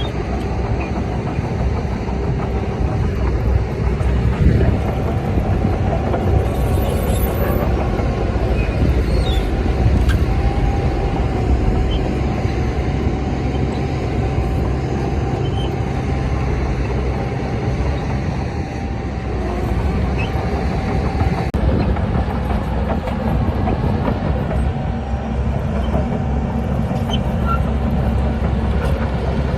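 Diesel engine of a Shantui DH17C bulldozer running under load, a steady low drone with a thin wavering whine above it.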